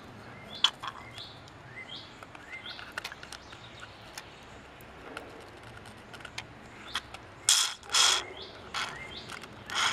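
Oil squirted from a plastic squeeze bottle into open engine cylinders. Small clicks and squeaks of handling come first, then several short, louder sputtering squirts in the last few seconds.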